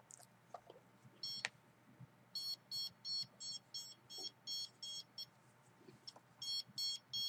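Electronic meter alarm beeping, a high pitched beep repeated about three times a second. It stops for about a second and then starts again near the end.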